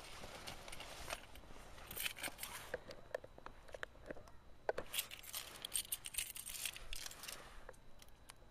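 Car keys jangling and a remote key fob being handled, in scattered light clicks and rattles. No engine is running.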